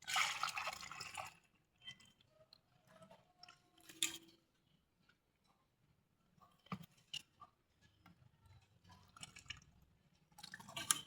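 Faint liquid sounds from a container of thinned wood filler being handled, with a sloshing hiss in the first second and a half, then a sharp knock at about four seconds and a few small clicks.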